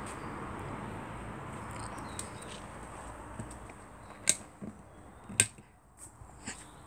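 Plastic wall light switches flicked by hand, two sharp clicks about a second apart with a few fainter clicks around them, switching the lamps of a traffic signal. A faint steady hiss underneath fades away over the first few seconds.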